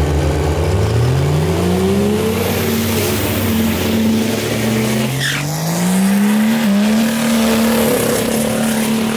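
Diesel drag car doing a burnout: the engine revs up and holds at high revs while the rear tyres spin and squeal, then revs up again and holds.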